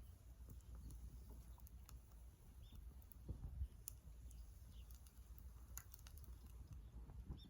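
Faint, sparse crackles and ticks of small wood burning in a Sierra wood-burning stove, a few scattered snaps over a low steady rumble.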